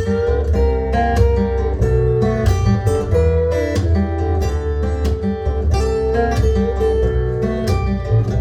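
Recorded music played back through Audio Note AN-J/LX loudspeakers: acoustic guitar picking and strumming over a steady bass line, with one note held above it.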